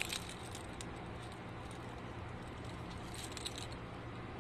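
Faint light clicks and clinks of small metal jewelry parts, chain and jump rings, being handled while a chain is attached, with a small cluster of clicks about three seconds in, over a low steady hum.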